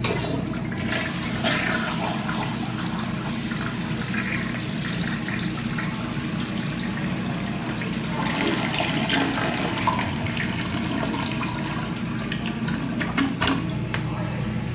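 A 1980s Eljer Hygeian toilet flushing, starting suddenly, with water rushing on steadily afterwards. A steady low hum runs underneath.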